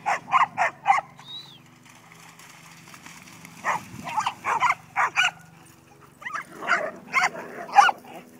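Dog barking in play, in three quick runs of short barks: one at the start, one about halfway through and one near the end.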